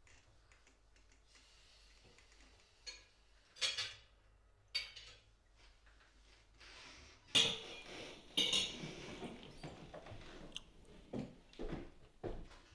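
Cutlery clinking and scraping on plates during a meal: a few separate clinks at first, then a busier run of scrapes and small clinks in the second half.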